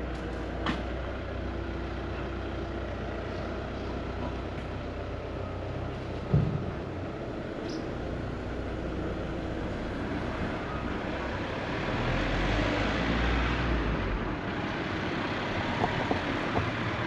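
Street traffic: a steady low rumble with a motor vehicle passing, swelling about two-thirds of the way through, and a single sharp thump about six seconds in.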